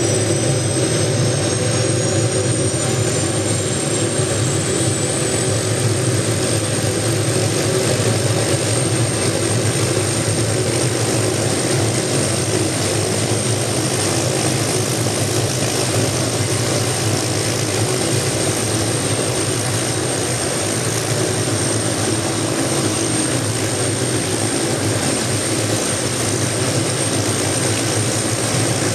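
Small helicopter running on the ground after a cold start, its main rotor spinning up: a steady engine drone with a high whine that rises in pitch over the first few seconds and then holds steady.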